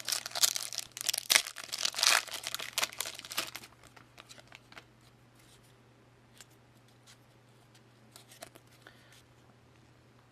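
A trading card pack wrapper being torn open and crinkled by hand for the first few seconds, then only faint scattered clicks as the cards inside are handled.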